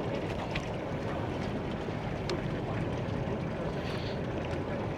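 Steady low rumble and wash aboard a small fishing boat, its engine and the water against the hull running without change, with some wind on the microphone and a few faint ticks.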